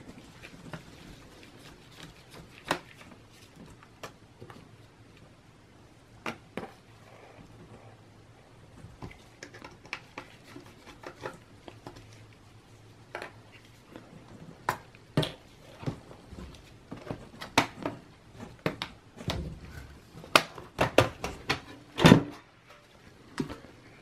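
Scattered light clicks and taps of a mini Phillips screwdriver working the screws of a Dell Latitude E6440's bottom cover, and of the small screws and the plastic cover being handled and set down on a table. The taps come thicker in the second half, with the loudest knock near the end.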